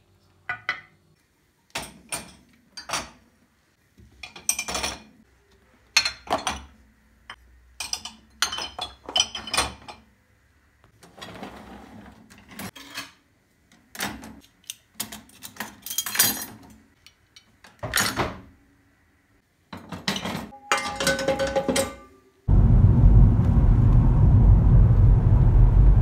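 Ceramic dishes, a mug and cutlery clinking and clattering in a string of separate knocks as they are handled and set into a dishwasher rack. Near the end this gives way to the loud, steady, low rumble of a car driving, heard from inside the cabin.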